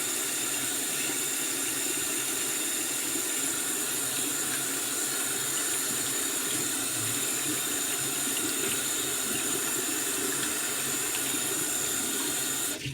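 Water running steadily from a tap into a sink during hand washing, shut off abruptly near the end.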